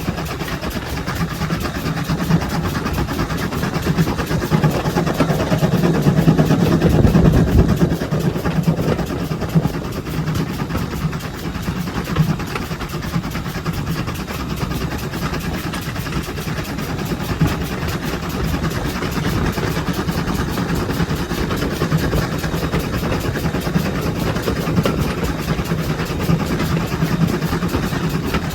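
Steam locomotive 7714, a 57xx-class 0-6-0 pannier tank, running along the line, with a steady mix of locomotive working noise and wheels on rail. It grows louder for a few seconds about five seconds in.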